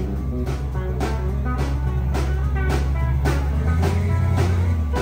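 Background rock music: a drum kit keeps a steady beat of about two hits a second under bass and guitar.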